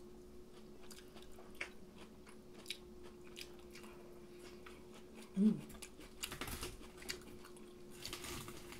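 Close-miked chewing of rice and fried food, with small wet mouth clicks. One short hummed "mm" comes from an eater about five and a half seconds in.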